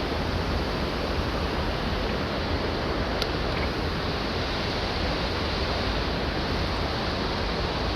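Steady rushing of falling water from the Aberdulais waterfall, an even continuous roar with a low rumble underneath. A single short click sounds about three seconds in.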